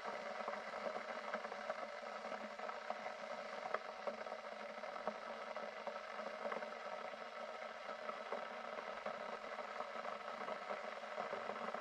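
Curry gravy simmering in a nonstick pan: a steady bubbling hiss full of small crackles and pops, with a few sharper clicks along the way.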